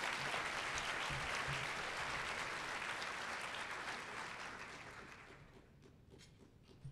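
Audience applauding, steady at first and then dying away over the last couple of seconds.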